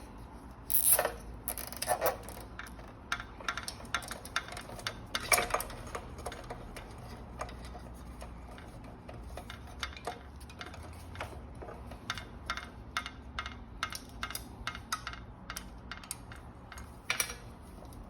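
Cable ties being pulled tight around an e-bike's wiring: many quick, irregular ratcheting clicks, with a few louder rustles and knocks from handling the wires.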